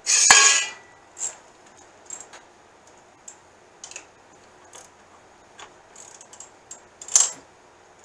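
Metal hand tools and small screws handled on a steel machine table: a loud, ringing metallic clatter at the outset, scattered light clicks and taps, then another sharp clink about seven seconds in.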